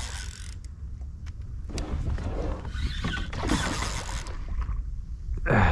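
Wind buffeting the microphone with short rushes of noise, on a kayak while a fish is being fought. Near the end comes a short vocal sound falling in pitch, the loudest moment.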